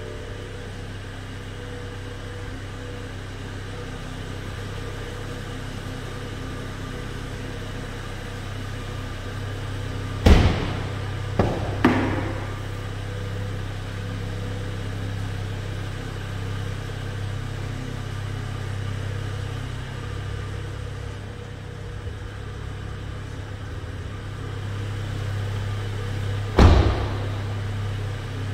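Car doors of a BMW 435i Gran Coupe shutting over a steady low hum: one hard thud about a third of the way in, then two more a second or two later, and another near the end.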